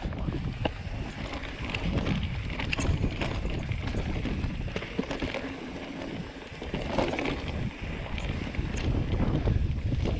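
Mountain bike riding over rough dirt and rock singletrack: wind buffeting the camera microphone as a low rumble, with frequent irregular clicks, knocks and rattles from the tyres and bike over the ground.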